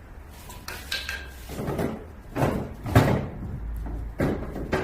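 Split firewood logs being set into a wood stove's firebox: a series of irregular wooden knocks and clunks, the loudest about three seconds in.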